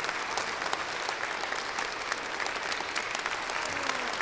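Audience applauding steadily with many hands clapping at the end of a string quartet performance.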